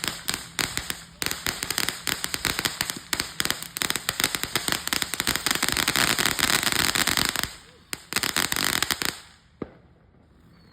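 Fireworks going off in a dense run of rapid crackling pops that stops about seven and a half seconds in, followed by a second short burst of pops that ends around nine seconds.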